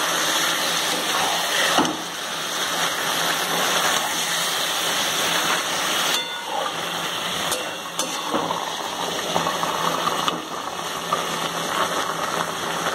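Raw marinated chicken pieces sizzling in hot butter in a metal kadai, steady throughout, while a metal spatula stirs and scrapes them against the pan with occasional clicks.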